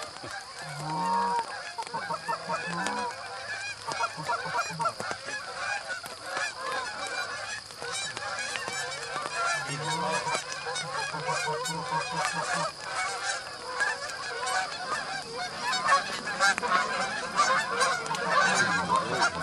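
A large flock of Canada geese honking, with many calls overlapping without pause and louder peaks toward the end.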